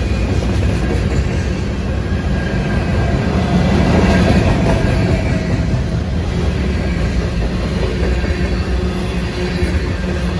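Freight train cars rolling past close by: a steady, loud rumble of steel wheels on rail, swelling slightly about four seconds in.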